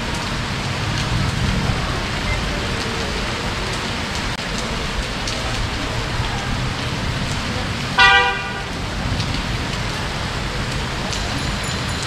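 Heavy rain falling steadily, with a single short vehicle horn toot about two-thirds of the way through.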